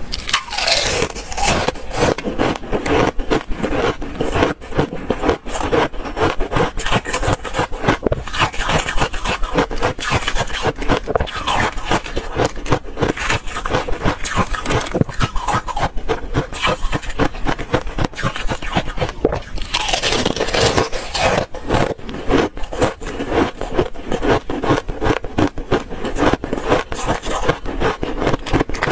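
Thin ice flakes being bitten and chewed close to the microphone: a dense, continuous run of sharp crunches and cracks. There are heavier bursts of crunching just after the start and again about twenty seconds in.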